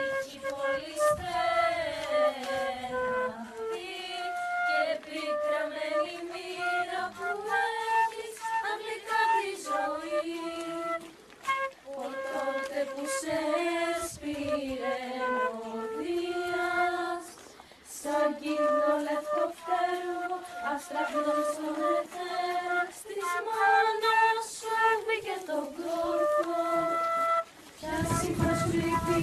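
A chorus of young voices singing a slow melody in unison, the notes held and gliding from one to the next. A low rumbling noise comes in near the end.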